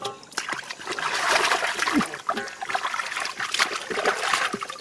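Hands and catfish splashing in shallow muddy water: a dense, irregular run of wet splatters and slaps, louder from about a second in.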